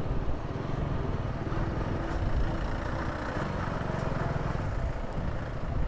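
Motorcycle engine running steadily during a ride, with wind rumble on the microphone.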